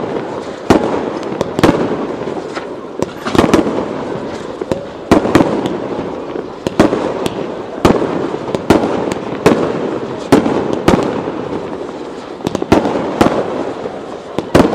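Fireworks display: aerial shells launching and bursting in quick succession, more than a dozen sharp bangs, each trailing off in echo, over a continuous crackle and rumble.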